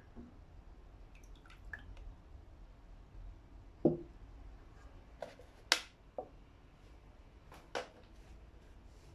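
Wet, rusty end-cutting pliers set down on a cloth towel with a dull thud about four seconds in, followed by a few sharp clicks and taps, the loudest a little under six seconds in.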